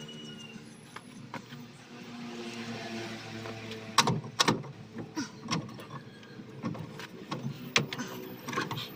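Metal clanks and knocks as a multicab's rear axle shaft, with its brake drum on, is worked loose and pulled from the axle housing. Two sharp clanks about four seconds in are the loudest, followed by scattered lighter knocks.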